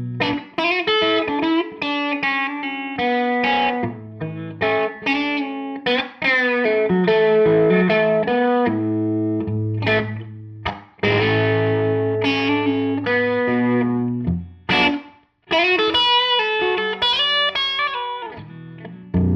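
Electric guitar played through a Tone King Gremlin tube amp on its rhythm channel: a run of picked single notes and chords with short pauses and a brief full stop about fifteen seconds in.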